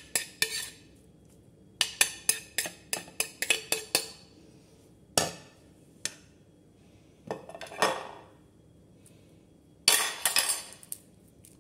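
A ceramic plate and utensils clinking and tapping against a stainless steel pot, in several bursts of quick, sharp clinks.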